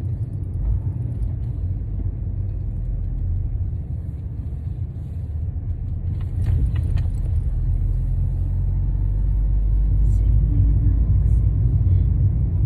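Low road and engine rumble inside a moving car's cabin, steady and growing somewhat louder in the second half, with a few faint clicks about six to seven seconds in.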